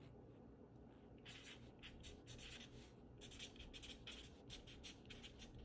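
Faint sound of a felt-tip marker writing on paper: a run of short pen strokes that starts about a second in, as letters are drawn.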